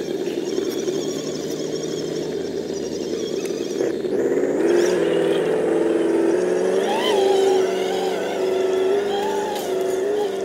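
Electric motors and geared drivetrains of 1/10-scale RC trucks whining, the pitch stepping and gliding up and down with the throttle, louder from about four seconds in.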